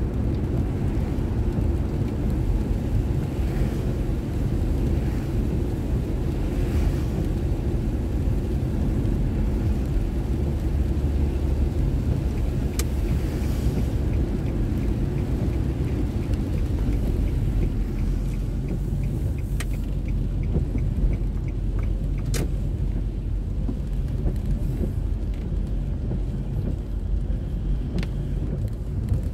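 A car driving along, heard from inside the cabin through a dashboard drive recorder: a steady low rumble of engine and tyre noise. A few sharp clicks and a run of light, evenly spaced ticks come past the middle.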